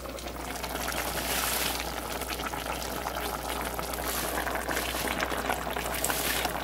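Chicken tinola broth boiling in a stainless steel pot, a steady bubbling crackle.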